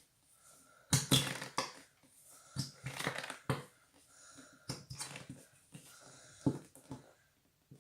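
A plastic bottle of craft glue being squeezed out into a bowl, its sides crackling and air wheezing through the nozzle as the thick glue is pressed out, in a handful of separate squeezes.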